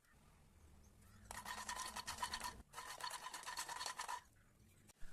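Rapid scraping or scrubbing of a kitchen utensil, in two bouts of about a second and a half each, the second starting right after the first stops.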